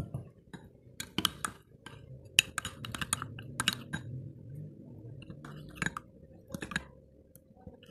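Metal spoon stirring a thick cocoa mixture in a drinking glass, clinking and scraping against the glass in quick, irregular clicks that thin out near the end.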